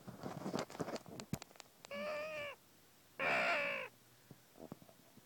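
Two drawn-out crow caws, each lasting about two-thirds of a second with a short gap between them; the second is louder. Before them come scattered rustling and clicks of hide netting and gun handling.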